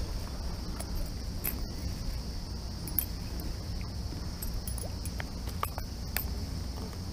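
Steady high chirring of an insect chorus, with a low rumble underneath and scattered small clicks and rustles from hands working a hook out of a fish's mouth.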